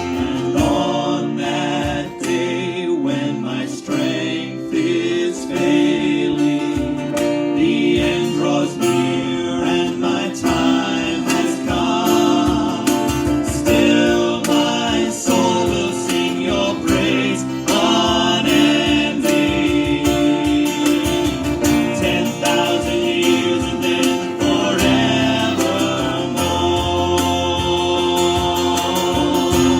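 Worship song: singing with strummed acoustic guitar.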